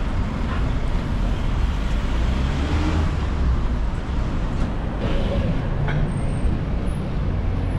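City street traffic: cars and other vehicles passing, a steady rumble of road noise.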